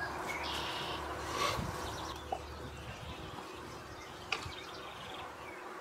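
Birds calling faintly over a steady low hum, with a few light ticks.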